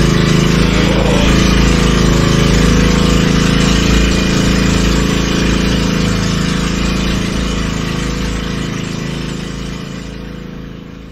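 Engine of a motorized outrigger boat running steadily, fading out gradually over the last several seconds.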